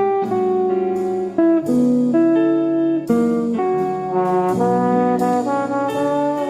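Background music: an upbeat instrumental with brass playing a melody of held notes over chords.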